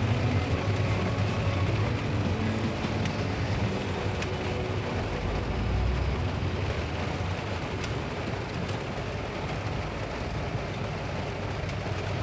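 Car engine running, heard from inside the cabin: a steady low hum under a haze of noise.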